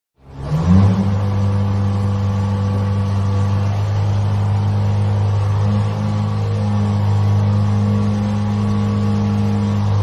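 Mobile crane's engine, starting up about half a second in with a quick rise in pitch, then running at a steady low drone.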